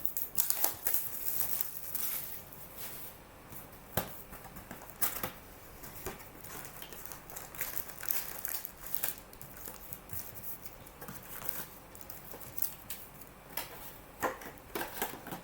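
Hands handling and opening trading-card packs: irregular crinkles, rustles and small taps of foil wrappers and card stock.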